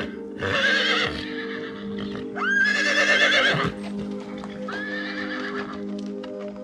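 Three drawn-out animal calls, each rising sharply and then held with a wavering pitch, over steady background music.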